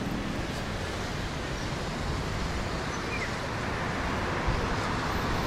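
Steady rushing noise of wind buffeting the microphone, over the background hum of city street traffic.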